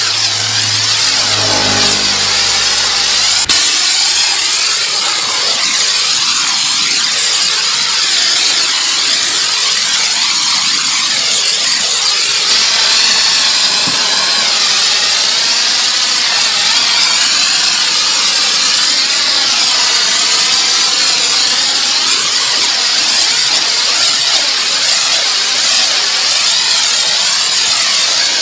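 Pressure washer spraying water onto a car in a steady, loud hiss. A low hum sounds in the first few seconds and cuts off suddenly.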